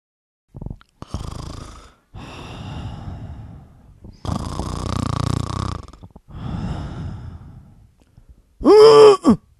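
The mysterious grunting noise: about five hoarse, breathy grunts with no clear pitch, the loudest and longest about four seconds in. Near the end comes a loud groan that bends up and down in pitch.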